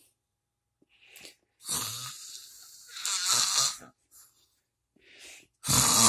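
A dog gives a series of short, snore-like growls on request, about four of them, with a louder one starting near the end.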